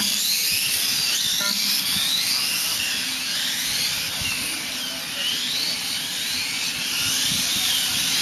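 Several 1/8-scale electric RC motorcycles (Kyosho Hang-On Racers) whining at high pitch, their motors rising and falling in pitch over and over as they speed up and slow down through the corners.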